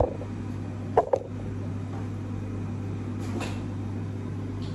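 Microwave oven running with a steady low hum, with two sharp knocks about a second in and a fainter knock later.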